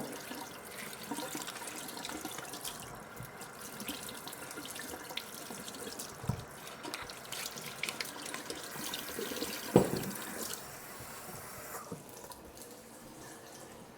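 Kitchen tap running into a sink while potatoes are rinsed, with a few knocks of handling; the loudest is about ten seconds in. The water stops about twelve seconds in.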